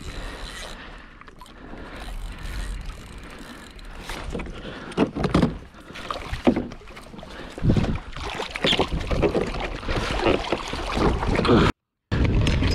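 Wahoo being gaffed and hauled aboard a kayak: irregular splashing and knocks against the kayak's hull, starting about five seconds in, with low wind rumble on the microphone before that.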